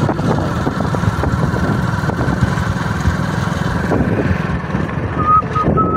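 Engine of a small road vehicle running steadily as it travels along a road, with a thin wavering high tone over it and a few short high chirps near the end.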